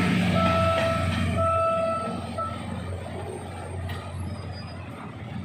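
Old PNR diesel train passing, its engine giving a steady low rumble, with a single-pitched tone repeating about once a second for the first two and a half seconds. The sound then fades as the train moves off.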